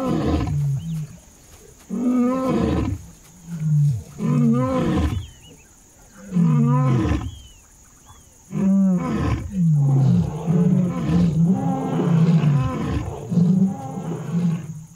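Male lion roaring: five long, drawn-out roars about two seconds apart, then a run of shorter, quicker roars that trails off near the end.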